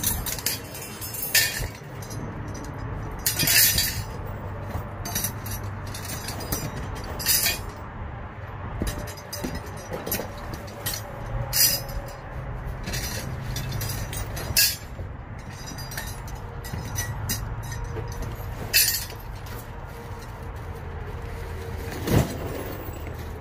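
Someone rummaging through cardboard boxes of stored belongings: scattered knocks, clinks and rustles at irregular intervals, over a steady low hum.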